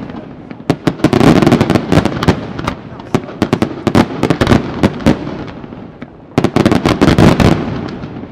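Aerial fireworks display: comets launching and shells bursting in three dense salvos of sharp cracks and bangs, about a second, four seconds and seven seconds in, with a rumble between them.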